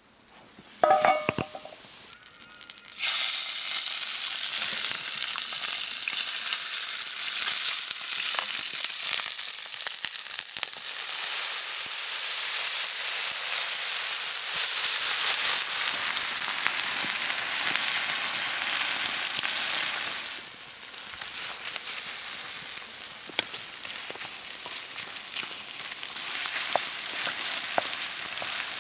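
A short metallic clink about a second in, then food sizzling in a hot pan: a steady frying hiss that drops to a quieter sizzle about two-thirds of the way through, with a few sharp ticks.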